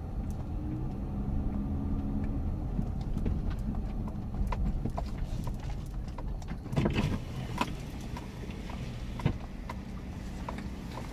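Dodge Grand Caravan minivan heard from inside the cabin as it rolls slowly across a lot: a low, steady engine and road rumble with scattered light clicks. There is a brief louder sound about seven seconds in as the van pulls up and stops.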